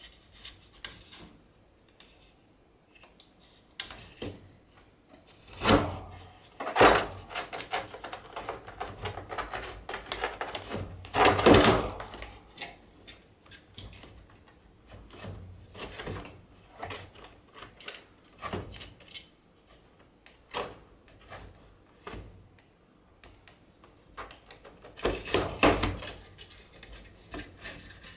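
Wooden floor slats of a cat cage knocking, rubbing and clattering against the plastic tray as a cat paws and noses between them for dropped food: irregular clicks and thuds, with a few louder bursts of clatter.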